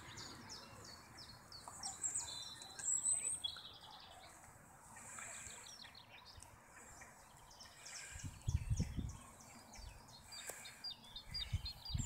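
Small birds singing in quick runs of high chirps, faint against outdoor background. Low rumbles on the microphone come about eight seconds in and again near the end.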